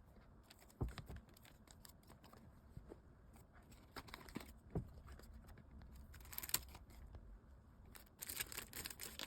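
Faint handling of stickers and small packaged items: scattered light taps and clicks, with a short crinkling rustle near the end.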